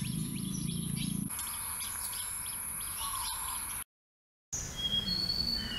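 Forest birds chirping over a steady high-pitched tone. About four seconds in, the sound cuts to dead silence for under a second, and a few short whistled bird notes follow.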